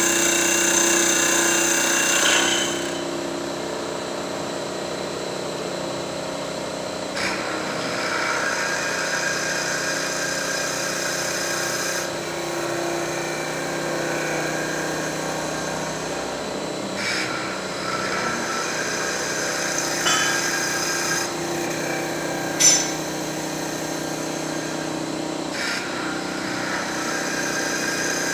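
Mustang MT5025 mini CNC wood lathe running and turning a wooden cup: a steady machine hum, with a higher cutting noise that starts and stops every few seconds as the tool works the wood. One sharp click comes late on.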